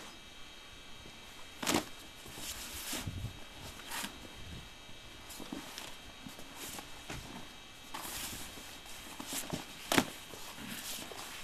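Tent fabric of a Bunkhouse motorcycle camper being pulled out and unfolded by hand: rustling and crinkling handling noise with scattered knocks, a sharp one just under two seconds in and the loudest near the end.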